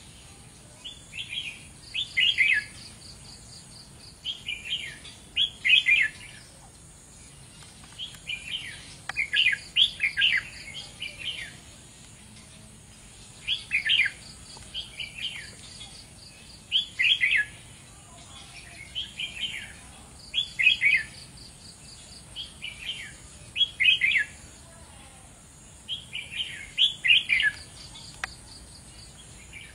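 Red-whiskered bulbul singing: short, bright phrases of quick notes, repeated every two to three seconds.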